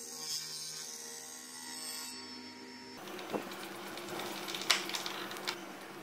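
A faint steady machine hum for about three seconds, then a hand screwdriver driving a countersunk screw through an aluminium channel into plywood: a few short clicks and scrapes as the screw turns.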